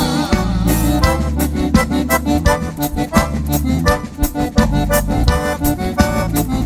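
Accordion (gaita) playing a quick run of short notes in the instrumental break of a gaúcho song about the bugio, over steady bass notes.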